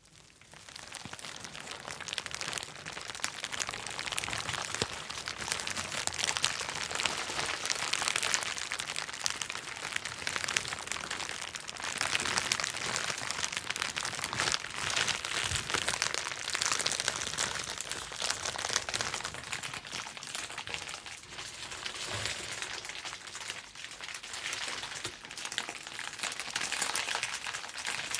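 Plastic bubble wrap being handled and popped: a dense, continuous crackle of small pops and crinkling plastic, starting just after the opening.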